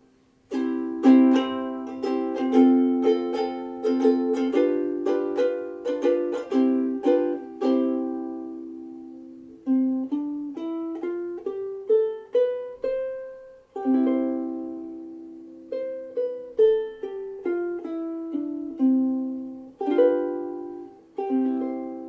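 Sumi UK-3KT soprano ukulele with a curly Hawaiian koa body, played solo. Strummed chords start about half a second in and run on quickly for several seconds, then a picked single-note melody follows, mixed with chords through the rest.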